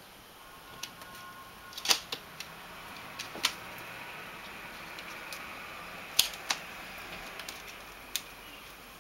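Scattered sharp taps, clicks and light rattles from a kitten playing among dry plant stems and a plastic planter box on a windowsill. The loudest taps come about two seconds in, about three and a half seconds in and a little past six seconds in, over a faint steady hiss.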